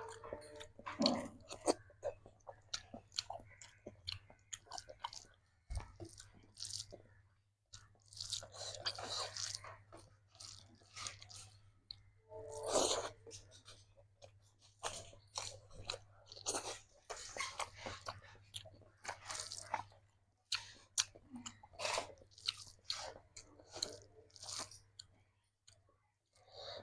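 A person chewing and biting food close to the microphone, in mukbang style, with frequent crunches and wet clicks of the mouth at an irregular pace.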